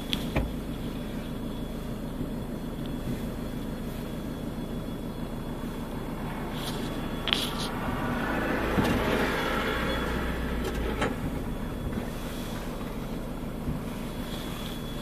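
A vehicle's engine idling, heard from inside the passenger cabin as a steady low rumble. A louder rush of noise swells and fades about eight to eleven seconds in, with a few light clicks.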